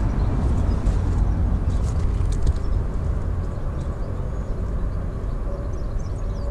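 Wind buffeting the microphone outdoors, a steady low rumble, with a few faint bird chirps near the end.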